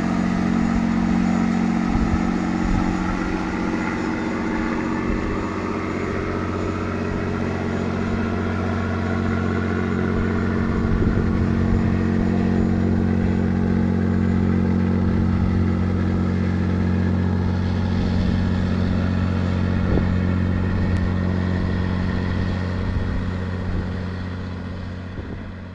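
Diesel engine of a small fishing trawler running steadily at one speed as it passes, a constant low drone that fades out near the end.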